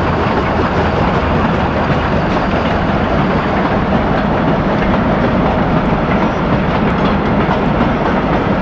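Passing steam-hauled train, double-headed by the Südbahn class 29 locomotive No. 671 and 56.3115: a loud, steady rumble of the locomotives and coaches on the move.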